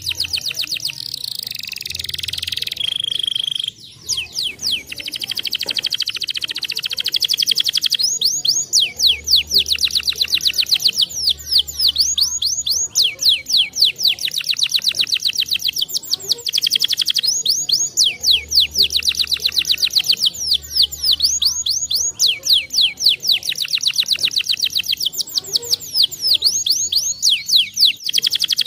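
Canary singing a long, fast song made of rapid trills of repeated sweeping notes. There is a short break about four seconds in, after which the trills run on almost without pause.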